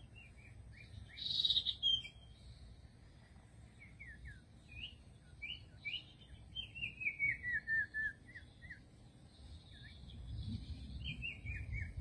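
Small songbird calling: short high chirps, a louder call about a second and a half in, then a quick falling run of notes around seven seconds in, with another falling run near the end.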